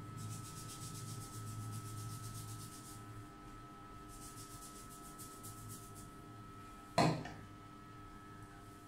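Fingers rubbing and massaging damp hair and scalp, a rhythmic scratchy rubbing that comes in two stretches. A single sharp knock about seven seconds in is the loudest sound, over a faint steady electrical tone.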